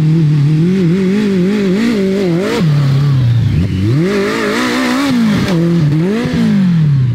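BMW K100 inline-four motorcycle engine in a trophy kart, revving up and down under hard driving. The pitch drops sharply about two and a half seconds in, climbs again, and falls away near the end.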